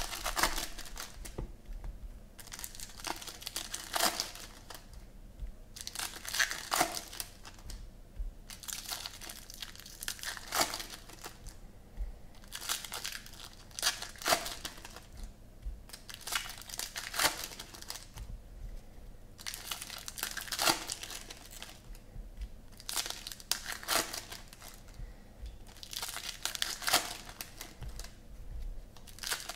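Foil wrappers of trading card packs being torn open and crinkled by hand, in irregular bursts every second or two.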